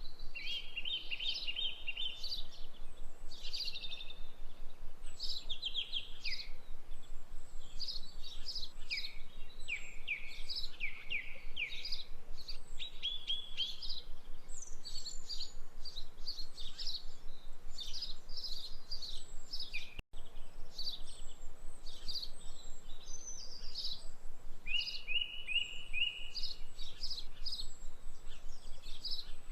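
Birds chirping and twittering throughout, in quick runs of short repeated notes, with a momentary break about twenty seconds in.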